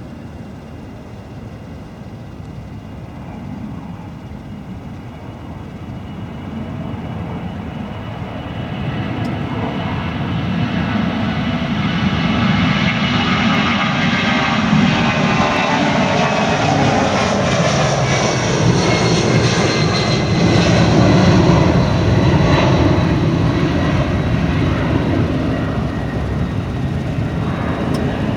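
Boeing 757-232's twin Pratt & Whitney PW2037 turbofans at takeoff power, a jet roar that builds steadily to its loudest about three quarters of the way in. A whine slides down in pitch as the airliner passes.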